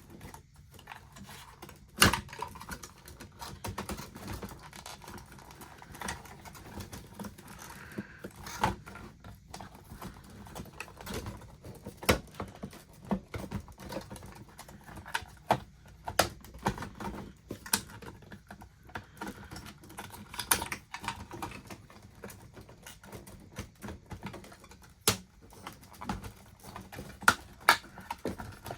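Irregular clicks and taps of a small Torx screwdriver, screws and the plastic and metal parts of an original Xbox being handled as its hard drive is unscrewed and lifted out. A few sharper knocks stand out among the lighter clicks.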